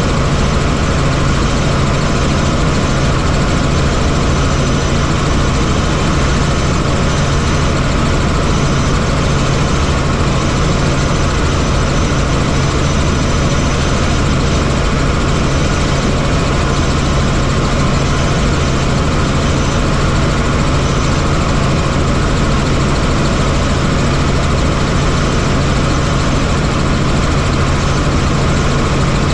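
Helicopter engine and rotors running steadily. The noise is constant and carries a strong low hum.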